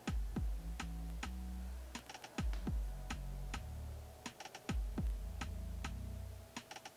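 A twanged golf shaft oscillating in a clamped CPM frequency machine, heard as a run of irregular sharp clicks and rattles, several with a quick falling tone, over an on-and-off low hum. This is a flat-line-oscillation check, with the shaft swinging in a straight line after fine adjustments.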